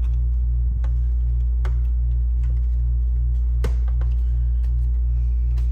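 A loud, steady low hum with an evenly pulsing undertone runs throughout. Over it come a few scattered small clicks and taps of parts being handled during assembly of a Macintosh Classic.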